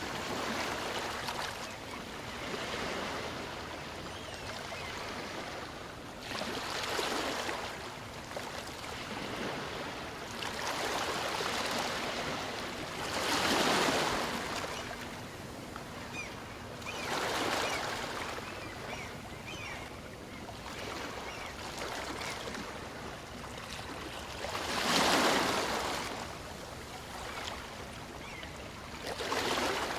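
Small waves from a calm sea washing in and out on a beach, a steady wash with a swell as each one breaks every few seconds, the strongest at about a third of the way in and again near the end.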